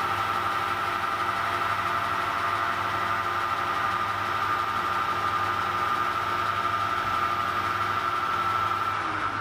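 Metal lathe running steadily while a tool turns a bar of graphite-filled PTFE stock for piston rings. It gives a strong high gear whine over a low motor hum.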